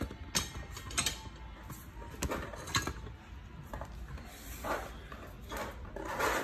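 Metal hand tools being handled: a few sharp clinks and knocks, with softer rubbing and shuffling in between.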